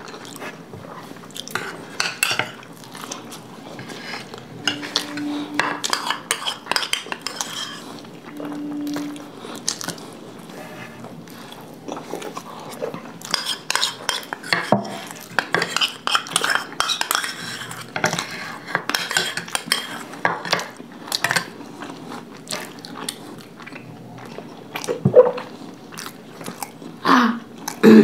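Metal spoons scraping and clinking against small bowls, scooping out the last of the curd, in irregular bursts with some chewing between.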